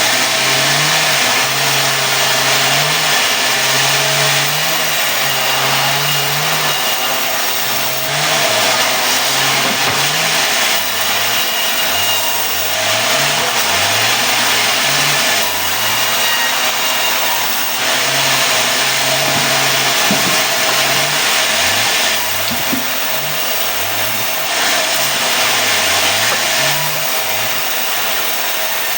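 Sawmill cutting mahogany into boards: the saw sends a loud, steady hiss through the wood while the mill's engine runs underneath, its pitch sagging and recovering as the load comes and goes.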